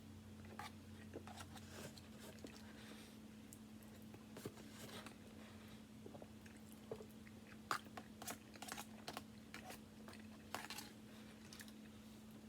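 A person chewing and biting food close to the microphone: irregular wet clicks and crunches, busier in the second half, over a faint steady hum.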